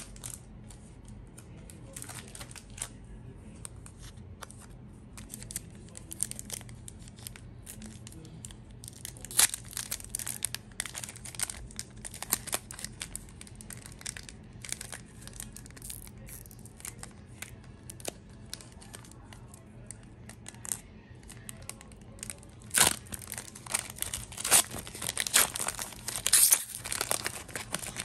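Foil wrapper of a Yu-Gi-Oh! Pharaonic Guardian booster pack crinkling and tearing as it is worked open by hand, in scattered sharp crackles. A louder run of tearing comes near the end.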